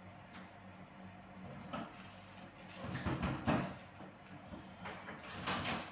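Rummaging in an open refrigerator: items and containers being moved about on its shelves, with bursts of clatter about three seconds in and again near the end, over a steady low hum.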